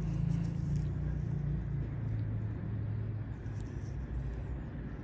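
A low, steady mechanical rumble with a hum that drops in pitch about two seconds in, like a motor vehicle running.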